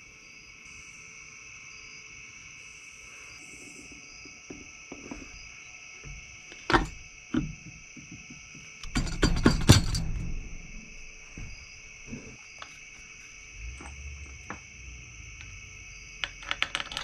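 Metal engine parts and hand tools clinking and knocking on a workbench during engine reassembly: scattered knocks, a longer burst of clatter about nine seconds in, and a quick run of clicks near the end. A steady high-pitched drone runs underneath.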